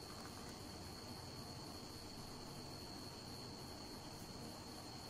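Faint, steady high-pitched tone held without a break over low background hiss.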